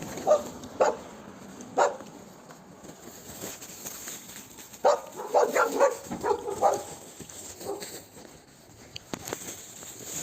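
A stray dog barking in short, sharp barks: three spaced barks in the first two seconds, then a quick run of barks about five seconds in, begging for food.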